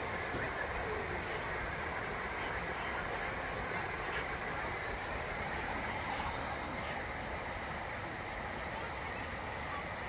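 Small waterfall pouring out of a stone arch into a pool: a steady, even rush of falling water.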